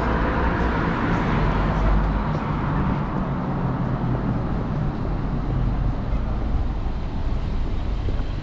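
City road traffic: a steady rumble of cars on a multi-lane street.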